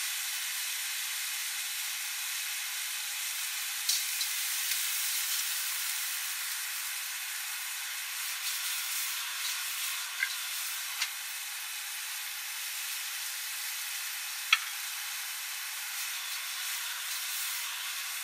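Frog pieces and lemongrass sizzling in a hot wok, a steady high hiss. A metal spatula clinks against the wok a few times, loudest about fourteen seconds in.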